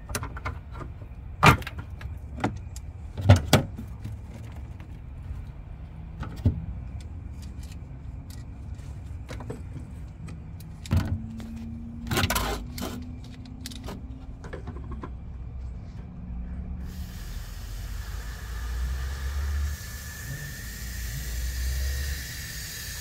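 Hand tools clicking and knocking against the fittings of a water softener's control valve, a few sharp clacks in the first half. About two-thirds of the way in a steady hiss starts and grows stronger with a low rumble under it: water being let back into the softener system.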